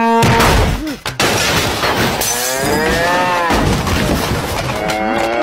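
Cartoon crash and smashing of furniture as a charging bull slams through, followed by loud bull bellows: one long rising-and-falling moo about two seconds in and another starting near the end, over continuing clatter.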